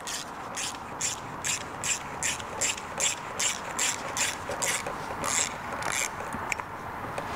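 Ratchet wrench clicking evenly, about three clicks a second, as it unscrews an Allen-head brake pad retaining pin from a scooter's front brake caliper.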